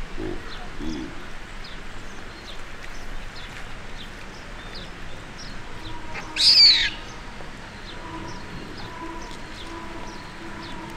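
Scattered short, high chirps of small birds, with one loud, high squealing call lasting under a second about six and a half seconds in. A faint steady hum sets in near the end.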